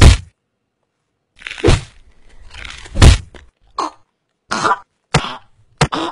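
A man coughing and choking in a string of short, harsh bursts, about seven in all, as he clutches his throat after being struck there.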